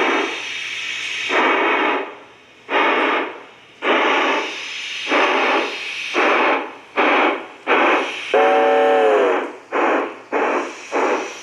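LGB G-scale steam locomotive's electronic sound unit chuffing, the beats coming faster as the train picks up speed. A whistle blast of about a second sounds about eight seconds in, its pitch sagging slightly as it ends.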